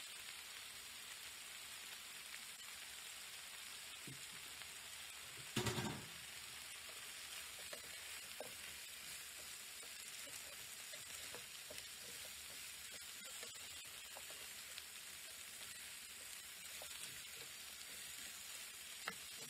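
Potatoes, carrots and chicken sizzling steadily in a nonstick frying pan, with one loud knock about six seconds in. Later come light clicks and scrapes of a spatula stirring the pan.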